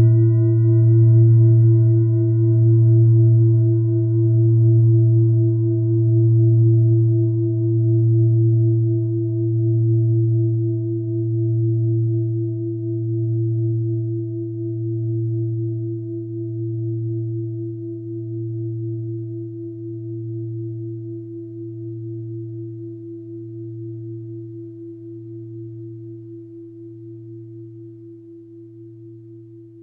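Mindfulness bell ringing out after a single strike: a deep hum under a clear higher tone, slowly dying away. The deep hum wobbles in a slow pulse about every two seconds.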